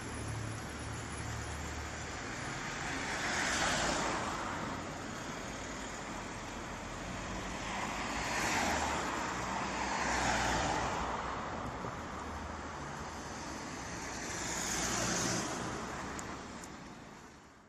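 Road traffic: a steady wash of tyre and engine noise. It swells and fades four times as vehicles pass close by, then fades out at the end.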